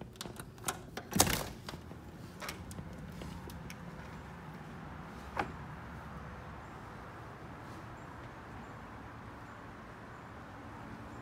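Door with blinds being unlatched and swung open: a run of clicks and a louder knock about a second in, then a steady background hiss. A single sharp click follows a few seconds later.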